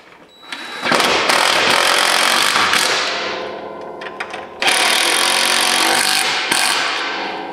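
DeWalt cordless impact driver hammering in two runs of about two seconds each, cinching down the carriage bolts that hold a steel side plate to a snowplow blade.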